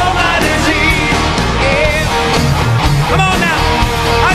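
Live rock band playing at full volume with electric guitar and drums, while a male lead singer sings into a microphone.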